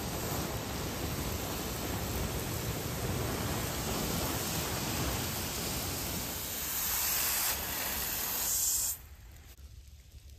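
Water from a garden hose spraying onto the hot embers of a biochar pit, with a steady hiss of spray and steam as the charcoal is quenched. The hiss cuts off suddenly about nine seconds in.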